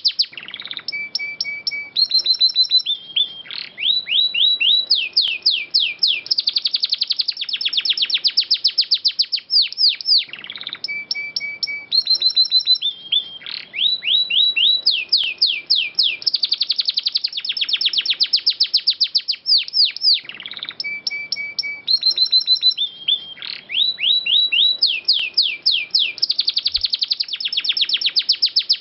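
Domestic canary singing: rapid trills of quick falling notes, broken by a few short steady whistled tones. The same sequence of phrases comes round about every ten seconds, as in a looped 'masteran' recording made for songbirds to learn from.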